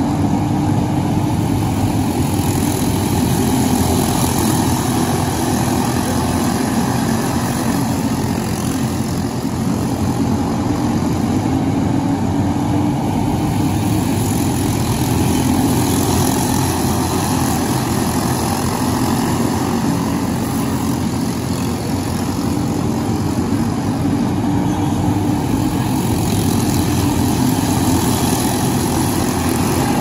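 Small engines of racing karts running laps together: a continuous drone that wavers in pitch and swells slightly a few times as the karts come around.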